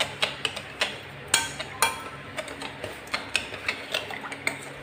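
Metal spoon stirring in a glass bowl, clinking and scraping against the glass in quick, irregular ticks, dissolving sugar and milk powder in hot water. A faint steady hum lies underneath.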